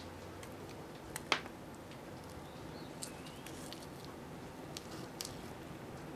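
White plastic fork pressing and cutting into a slice of no-bake cheesecake in a gelatin shell, with soft squishing and a few light clicks and taps from the tines and the Froot Loops cereal. One sharper click comes about a second in.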